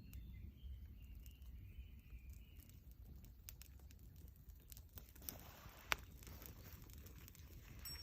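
Faint crackling and scattered snapping of a wood campfire over a low wind rumble, with one sharper snap about six seconds in.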